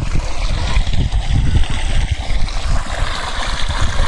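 Water pouring from a pipe into a fish pond, splashing and gurgling steadily, under a heavy low rumble.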